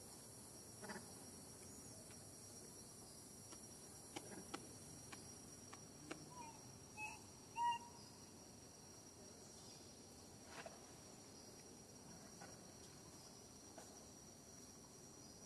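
Faint, steady high-pitched insect trill, cricket-like, with a few soft clicks and three short chirps around the middle, the last one the loudest.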